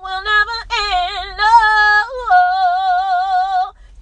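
A woman singing unaccompanied, with wavering runs and long held notes sung with vibrato; the last held note breaks off shortly before the end.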